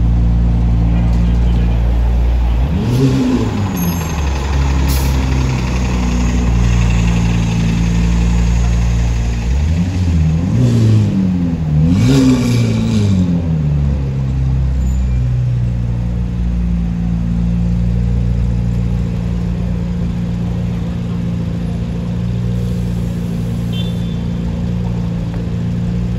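McLaren 765LT Spider's twin-turbo V8 idling steadily. It is blipped once about three seconds in and three more times between about ten and thirteen seconds in, the pitch rising and falling back to idle each time.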